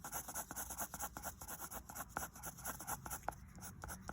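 A drawing tool scratching back and forth on paper in quick, repeated strokes while shading in an airplane's wings.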